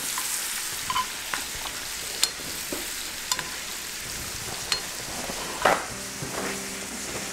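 Rabbit loins frying in butter in a cast-iron skillet: a steady sizzle, with scattered light clicks of a spoon against the pan as the hot butter is spooned over the meat to baste it.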